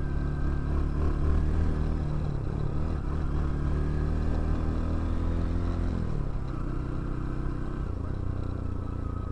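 Bajaj Pulsar NS 200 single-cylinder engine with an aftermarket sound-modified exhaust, running steadily while the bike is ridden, then easing off about six seconds in as its pitch drops.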